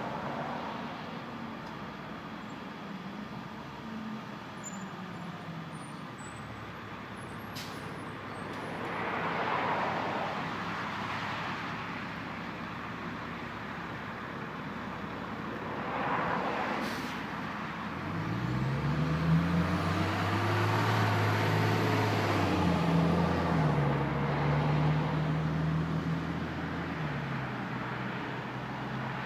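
Road traffic passing, with two vehicles swishing by, then a heavy vehicle's engine running loudly for about ten seconds in the second half, its pitch shifting as it pulls away.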